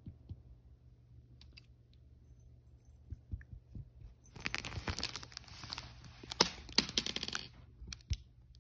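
A tabby cat's claws scratching and rustling the fleece blanket and plush fabric of a cat tree: a burst of scratching lasting about three seconds, with sharp clicks mixed in and a few more clicks near the end.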